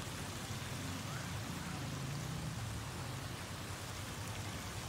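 Steady rushing noise of pool water, with a low hum underneath.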